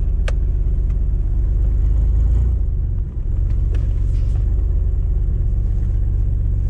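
Chevy S10 pickup's 4.3-litre V6 engine running as the truck drives, a steady low rumble with a brief dip about three seconds in.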